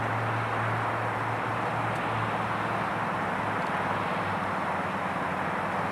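Steady rushing background noise with a low hum that fades out over the first four seconds, like a distant engine.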